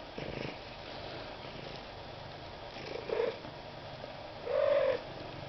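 A domestic cat making short vocal noises: a brief low purring rumble at the start, then a short call about three seconds in, and a louder, slightly arching call about half a second long near the end.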